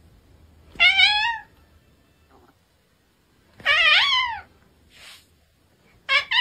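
Tabby cat meowing: two long meows about three seconds apart, each rising then falling in pitch, then a quick pair of meows near the end.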